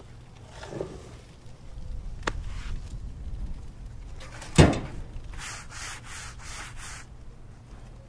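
Freshly chainsaw-milled wood slabs and boards being handled: a few wooden knocks, the loudest a sharp thud about four and a half seconds in. Then comes a quick run of about six rubbing strokes on the rough-sawn wood, about four a second.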